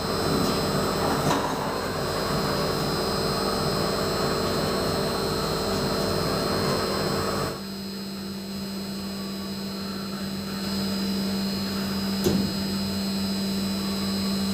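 CNC underfloor wheel lathe running while it turns (re-profiles) a locomotive's wheels: a steady machine hum with several held tones. About halfway the sound drops abruptly to a quieter, steadier hum, and a short knock sounds near the end.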